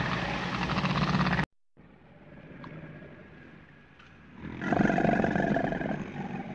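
A loud, low, fast-pulsing call cuts off abruptly about a second and a half in. After a quiet stretch, an alligator gives a loud, deep rumbling growl starting about four and a half seconds in.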